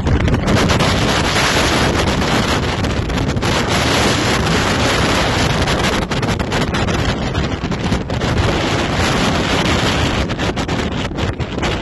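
Strong sandstorm wind gusting over a phone microphone: a loud, continuous rush with deep, uneven buffeting.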